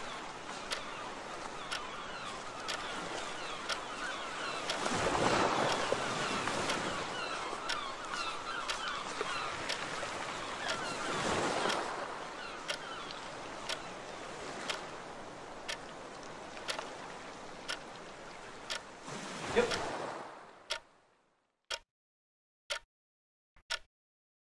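Sea waves washing ashore, swelling twice, with a clock ticking steadily about once a second. Near the end the surf fades out and only the ticking remains.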